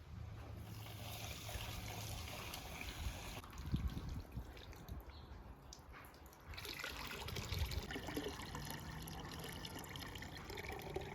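Water trickling and dripping, fading to a quieter stretch about halfway through before picking up again.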